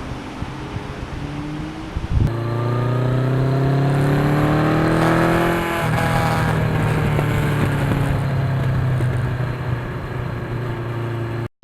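Inline-four engine of a 1982 Suzuki GS1100E motorcycle on the road. After a couple of seconds of wind rush it climbs in pitch under acceleration. A little past the middle the note dips, then it runs on at a steady pitch.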